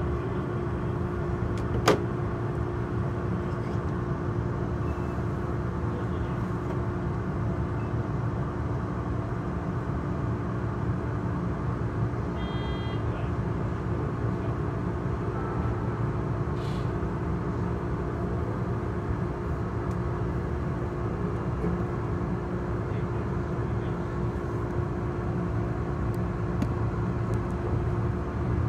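Steady hum of a Tobu N100 Spacia X electric train's onboard equipment while it stands at the platform, with a steady tone through it. A sharp click about two seconds in and a brief beep about halfway through.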